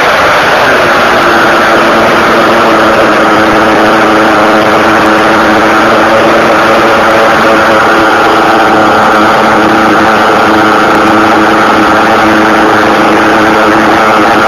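RB S7 .21 nitro engine in an OFNA Ultra LX RC buggy running hard, heard close from an onboard camera beside the cylinder head. Its pitch dips in the first second, then holds steady at high revs.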